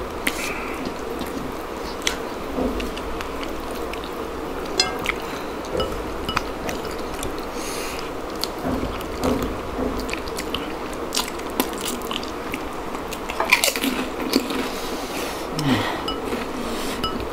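Close-up eating sounds: chewing, wet mouth smacks and fingers squishing soft finger-millet dhido and curry, as scattered small clicks over a steady background hiss.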